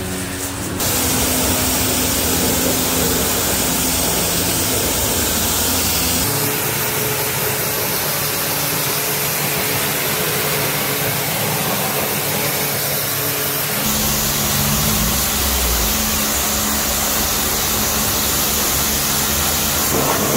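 High-pressure water jet from a car-wash lance spraying onto a motorcycle: a steady hiss with a low steady hum underneath.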